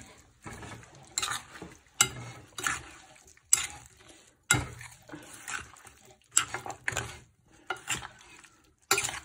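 Chopped raw meat, onions, tomatoes and spices being mixed by hand in a glass bowl: repeated irregular mixing strokes, roughly one or two a second, with a brief pause about halfway through.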